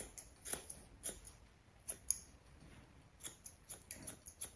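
Grooming scissors snipping through a small dog's facial hair: faint, scattered snips at first, then a quicker run of snips in the second half.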